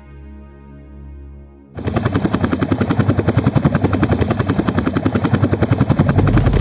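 Soft background music with long held tones, cut off abruptly about two seconds in by a loud, fast, even beating of a machine at many beats a second.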